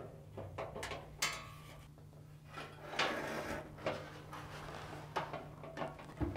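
Handling noise as a dryer's steam-nozzle water line and nozzle elbow are worked through an opening in the drum assembly: a handful of separate knocks and scrapes.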